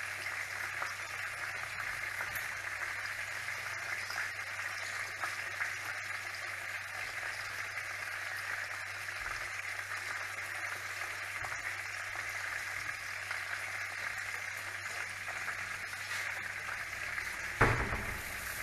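Chicken frying in a pan of oil, a steady sizzle with fine crackling. A single sharp knock near the end.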